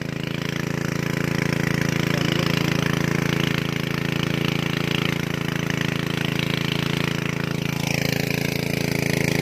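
Engine of a water pump draining a pond, running at a steady speed.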